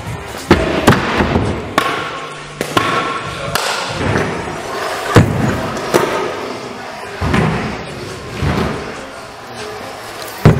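Freestyle trick scooter landings and hits: a string of irregularly spaced thuds and slams, the loudest about five seconds in, over background music.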